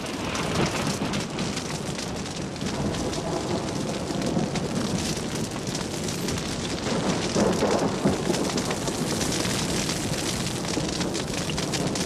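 Wildfire burning through mountain vegetation: dense, steady crackling over a rushing hiss of flames.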